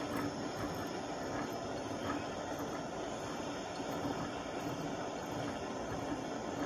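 Gas torch flame hissing steadily while a thick glass bottle is turned in it, heating the glass to crack it apart.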